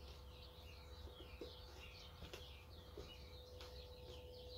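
Faint birds chirping in the background, a quick run of many short chirps, over a steady low hum.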